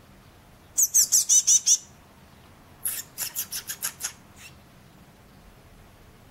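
Fledgling blue tits calling in two quick runs of high, sharp chirps, each run about a second long with some eight notes, the first run loudest, then a single faint chirp.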